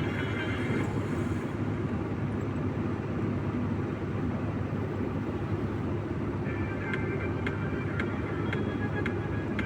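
Steady drone of a truck's engine and road noise heard inside the cab while driving.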